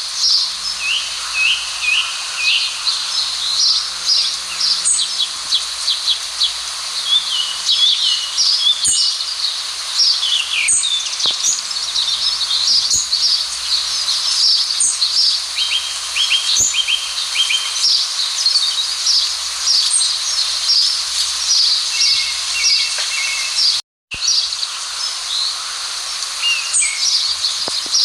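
Dense chorus of small songbirds: many short high chirps and trills overlapping without pause. The sound cuts out completely for a moment once, late on.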